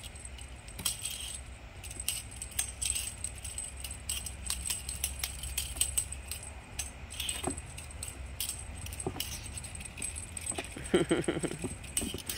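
Irregular light jingling and clicking ticks from a feather-bird cat wand toy being flicked and dragged across a concrete floor while kittens pounce on it. A short pitched cry comes near the end.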